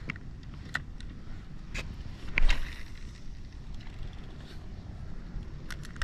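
Cast with an ultralight spinning rod and Shimano spinning reel. A few small clicks of the reel being handled lead up to a sharp swish of the cast about two and a half seconds in, the loudest sound. A quick run of clicks from the reel comes near the end as the retrieve begins, all over a low rumble of wind.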